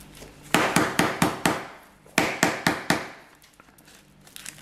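Hand-held spice grinder being twisted over a bowl of raw chicken: two quick runs of sharp, rhythmic clicks, about five a second.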